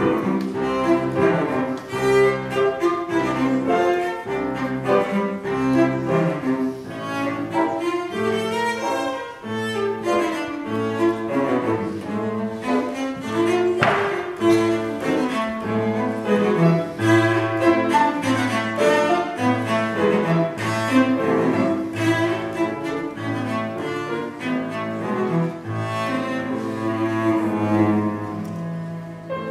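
Cello played with the bow: a lively melody of many quick notes in a folk-dance style, with repeated low notes keeping a steady beat beneath it.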